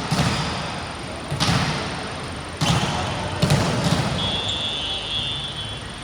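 Volleyball being struck several times during a rally, sharp thuds about a second and a half apart, followed about four seconds in by a short steady blast of a referee's whistle.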